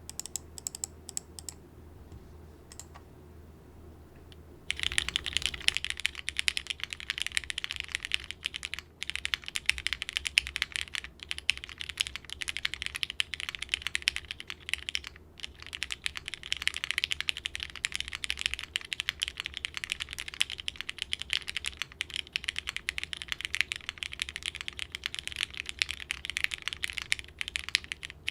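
A few scattered keystrokes, then fast continuous typing from about five seconds in, on a plateless Mekanisk Fjell mechanical keyboard with lubed Cherry Hyperglide linear switches and GMK keycaps.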